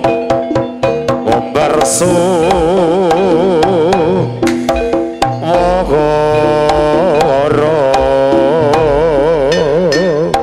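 Live Javanese jaranan music: a wavering, vibrato-laden melody line over a steady stream of hand-drum and percussion strokes, with low booming notes underneath.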